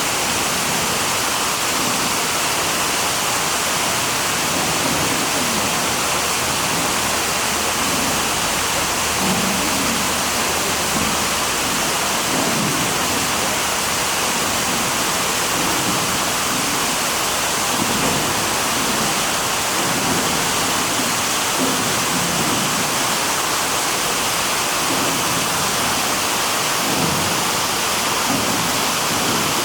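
Manai Falls, a waterfall plunging into the gorge, pouring with a loud, steady rush of falling water.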